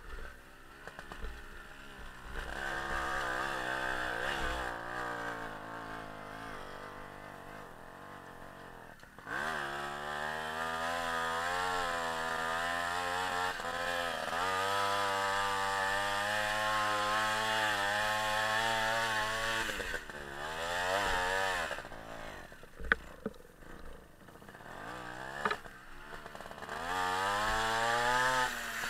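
Small two-stroke motorbike engine running under load, its pitch rising and falling again and again as the throttle is opened and eased off. It is softer for the first several seconds and louder from about a third of the way in, with a couple of sharp knocks near the end.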